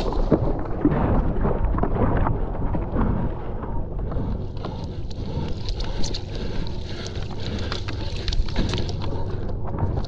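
Wind rumbling on the action camera's microphone, with water splashing and rushing under a stand-up paddle foil board. The splashes are sharper in the first few seconds, then settle into a steadier rush.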